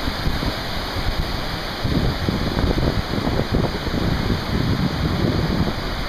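Steady rushing of a Pyrenean mountain river (gave) in flood, swollen brown water churning past in spate after days of heavy rain. From about two seconds in, low gusts of wind buffet the microphone.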